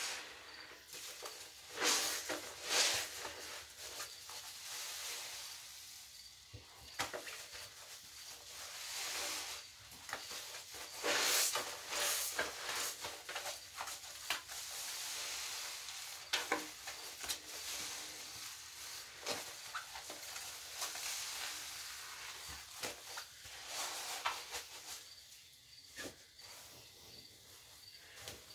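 Wet sponges being squeezed and kneaded by hand in a basin of thick soapy lather: squelching, with a crackling fizz of foam that comes and goes as the sponges are worked.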